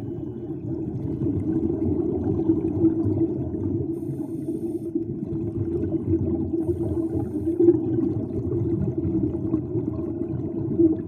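Muffled underwater ambience: a steady low rush of water noise, with no music or voices.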